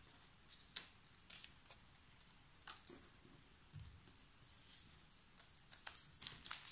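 Faint rustling and light ticks of paper die-cuts and a clear plastic packet being handled, sorted and laid down. The ticks are scattered throughout, and the rustling thickens near the end.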